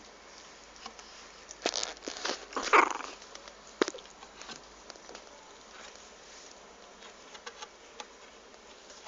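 English bulldog puppies: a cluster of short puppy noises and sharp knocks about two to four seconds in, loudest near three seconds, then only faint light ticks.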